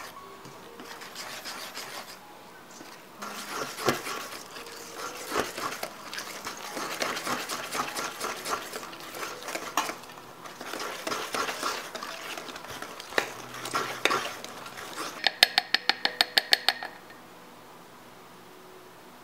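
A metal utensil stirring and scraping in a bowl with irregular clinks, then about ten quick taps on the rim, each ringing briefly.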